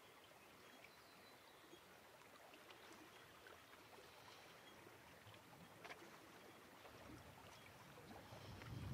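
Near silence: faint outdoor ambience with a few soft ticks. Near the end a low rumble of distant thunder starts to build.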